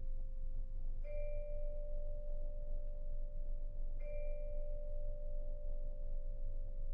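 Vibraphone notes struck softly with mallets and left ringing: a held note carries in, then a slightly higher note is struck about a second in and again about four seconds in, each ringing on for several seconds.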